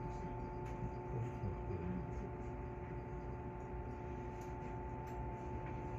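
JR West 221 series electric train standing still: a steady electrical hum from its onboard equipment, with two constant tones over a low even rumble and a few faint clicks.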